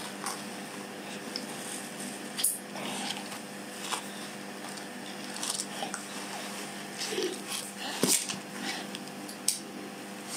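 Scattered light clicks and rustles of a baby handling a stroller's plastic harness buckle and straps, over a steady low hum.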